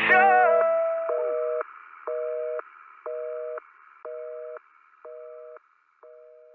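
Telephone busy signal: a two-tone beep, about half a second on and half a second off, once a second, over a faint line hiss. Each beep is fainter than the one before, fading out as the song ends.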